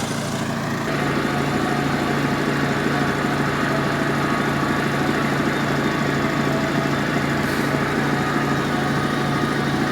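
A small engine running steadily, getting louder about a second in.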